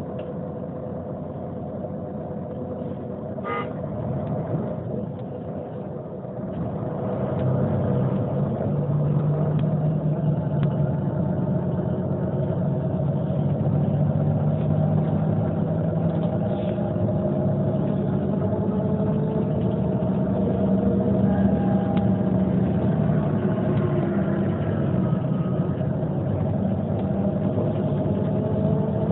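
2002 Neoplan N 4416 city bus running downhill with the retarder on its Voith gearbox braking: a steady drivetrain hum with held whining tones. It gets louder about seven seconds in, and some of the tones slide in pitch later on.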